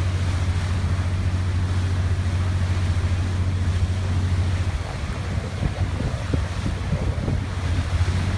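A boat's engine drones steadily underneath the rush of wind and water on the microphone. The drone drops back a little about five seconds in.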